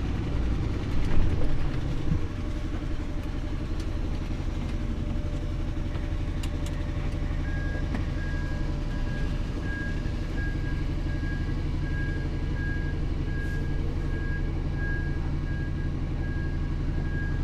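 Lorry's diesel engine running at low revs, heard from inside the cab as the truck creeps along at manoeuvring speed, with a couple of knocks in the first two seconds. About halfway through, a high warning beep starts and repeats steadily at a quick, even rate.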